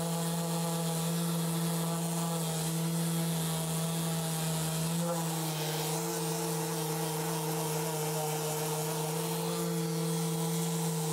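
Mirka random orbital sander running steadily with a coarse, well-used 80-grit disc, sanding down the carved wooden back of a guitar body: a constant motor hum with sanding hiss.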